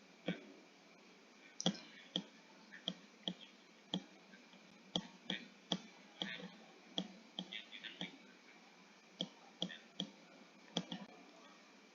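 Computer mouse clicking: about twenty short, sharp clicks at irregular intervals, some in quick pairs.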